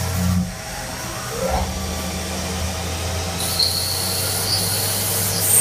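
CNC lathe running, its spindle turning a metal shaft with a steady low hum. About three and a half seconds in, a high hiss with a thin whine starts and grows louder toward the end as the turning tool makes a finishing cut on the part.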